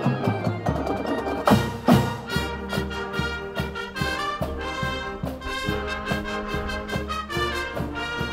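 A marching band playing an up-tempo tune, its trumpets, trombones and sousaphones over a steady drum beat, with two hard accented hits about a second and a half and two seconds in.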